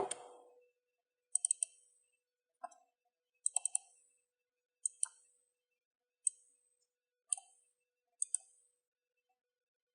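Computer mouse clicking in short, irregular clusters: a quick triple about a second and a half in and again about three and a half seconds in, single clicks between, and quick double-clicks near five seconds and eight seconds.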